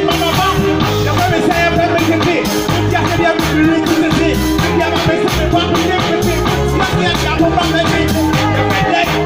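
Live band music: a drum kit and bass guitar keeping a steady beat, with a voice rapping over it.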